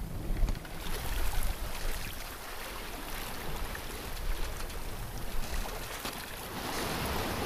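Sea water rushing and splashing along the hull of a sailboat under way offshore, swelling louder near the end.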